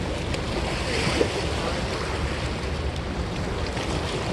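Steady wind rumbling on the microphone over river water washing against the rocky bank.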